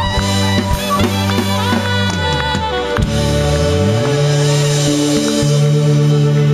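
Live band playing an instrumental passage: drum kit with a low bass line that slides between notes, under higher melodic parts.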